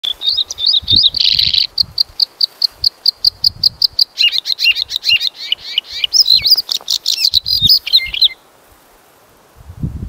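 A bluethroat singing. A few warbled notes and a short buzzy note open the song, then one clear high note repeats rapidly, about seven times a second. It breaks into a varied, twittering phrase and stops about eight seconds in.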